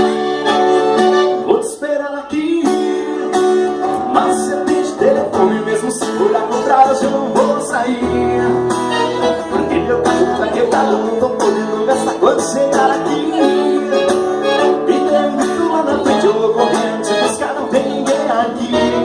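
Instrumental introduction of a recorded Brazilian pop song: a plucked-string melody over a steady beat.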